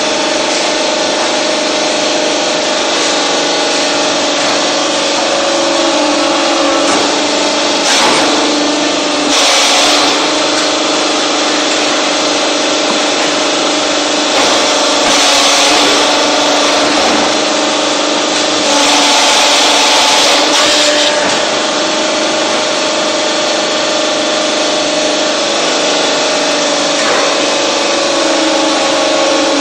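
Hydraulic press block-making machine running: a steady mechanical hum holding two low tones, with louder rushing noise swelling a few times, around ten, fifteen and twenty seconds in.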